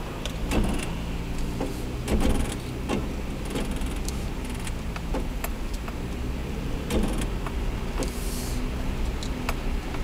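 A car's engine and tyres running steadily, heard from inside the cabin while it drives slowly on a snow- and slush-covered road, with scattered short clicks and knocks.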